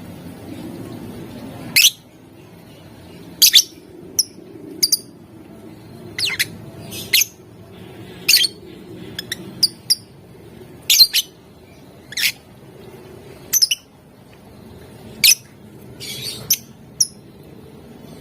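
A lovebird giving short, sharp, shrill calls one at a time, about fifteen of them at uneven intervals, over a faint low hum.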